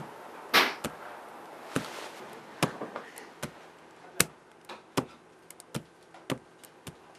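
A short swish, then a run of sharp taps about a second apart that come closer together near the end, like footsteps on a hard floor.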